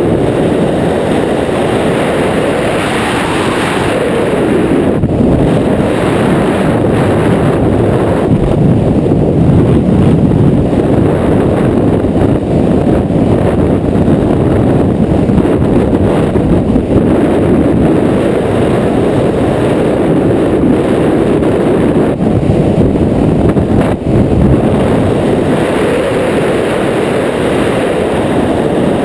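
Loud, steady rush of airflow over the microphone of a camera carried on a wingsuit pilot in fast flight, a deep wind roar that swells and eases slightly.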